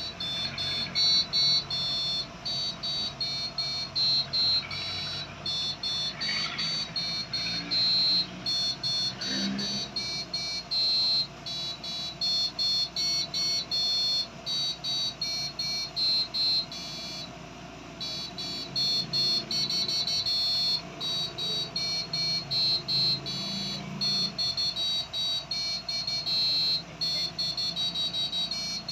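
Piezo buzzer driven by an Arduino playing a simple tune of short, high-pitched beeping notes that change in pitch and length, with brief gaps between notes.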